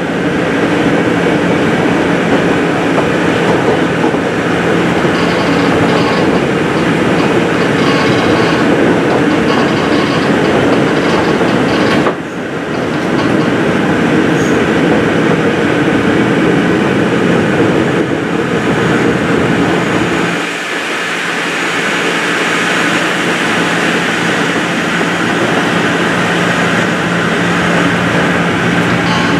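Cabin running noise of a 203-series electric commuter train under way: a steady rumble and rattle of the car with a steady hum throughout. There is a brief dip about twelve seconds in, and the deep rumble eases about twenty seconds in.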